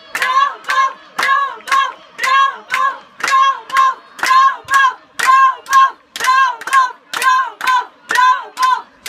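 Spectators clapping in a steady rhythmic beat, about two claps a second, with high voices chanting a short call in time with each clap in celebration.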